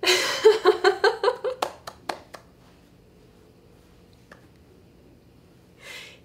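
A woman laughing: a sudden burst of rapid, evenly spaced "ha-ha" pulses for about a second and a half, followed by three short sharp clicks. Near the end come two short breathy sounds.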